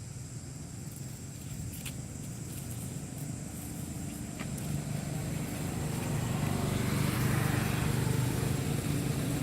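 A motor vehicle's engine running with a steady low hum, growing louder through the second half.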